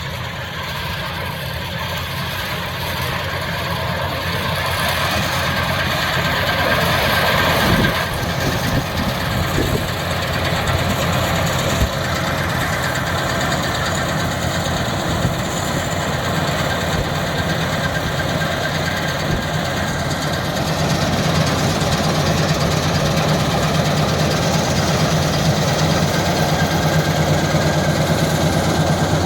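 Dashmesh 9100 combine harvester's engine running steadily, gradually getting louder.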